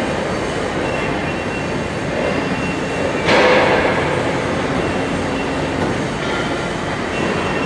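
Banjo axle automatic straightening machine running with a steady, loud industrial din. About three seconds in there is one sudden, loud hit that rings briefly.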